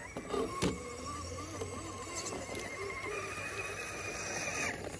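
Electric motor and gear drive of a scale RC rock crawler whining under throttle as it climbs a rock pile, the whine stepping up in pitch about three seconds in and cutting off sharply near the end. A sharp knock sounds about half a second in.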